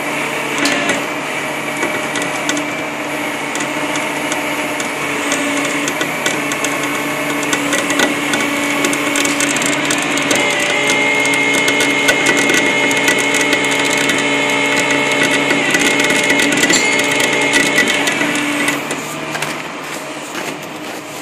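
Tow truck's cable winch running under load, pulling on the winch line to the crashed pickup: a steady mechanical whine. A higher whine comes in about halfway, and the winch stops near the end.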